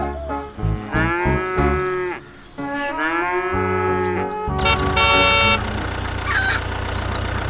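Two long, drawn-out cow moos, each rising and then falling in pitch, over background music with a repeating bass line. A brighter, buzzy tone comes in about five seconds in.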